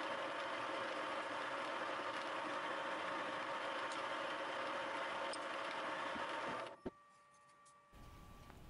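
Thiel Duplex 158 milling machine running steadily with a drill in its spindle, a machine hum with a steady whine. Near the end the running sound drops away, followed by a single sharp click.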